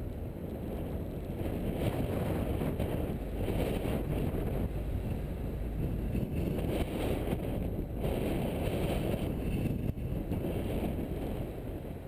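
A car driving on a paved road: a steady rushing of wind on the microphone and tyre noise, with no clear engine note. It grows louder about a second and a half in and eases a little near the end.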